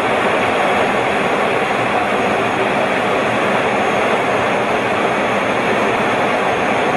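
Steady, even noise of a fighter jet in flight, engines and rushing air heard from inside the cockpit, with a faint high steady tone over it.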